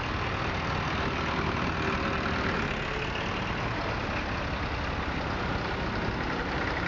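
Vintage farm tractors driving past one after another, their engines running steadily.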